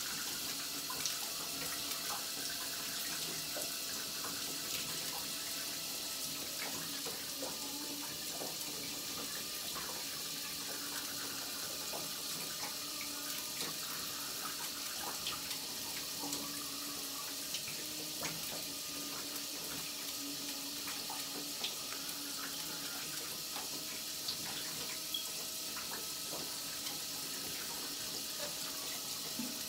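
Shower running: a steady hiss of water spraying from the shower head and splashing in a tiled stall, with scattered small ticks of drops. Under it, a faint steady hum of an electric toothbrush in use.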